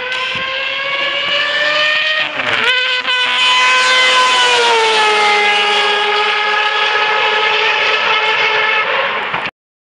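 Four-rotor rotary engine of a Mazda 787B Le Mans race car screaming at high revs as it drives past, with a brief lift and upshift about two and a half seconds in, then the pitch drops as it passes. The sound cuts off suddenly near the end.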